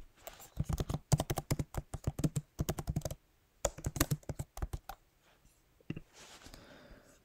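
Typing on a computer keyboard: a quick run of keystrokes lasting about three seconds, then a few more keystrokes after a short pause.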